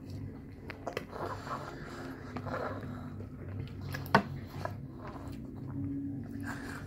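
Metal spoon clicking and scraping against a plastic divided food tray as a toddler feeds himself, a few sharp clicks with the loudest about four seconds in, over a steady low hum.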